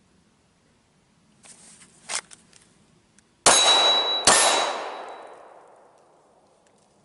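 Two pistol shots just under a second apart, each followed by a metallic ring and a long echo that fades over about two seconds. A short click comes about two seconds in, before the shots.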